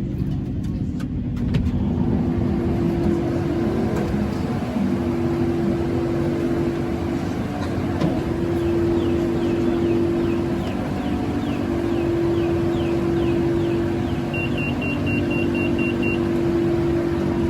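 BTS Skytrain electric train running between stations: a steady rumble with a motor hum that swells and fades. There is a run of short high squeaks in the middle and a short beeping tone near the end.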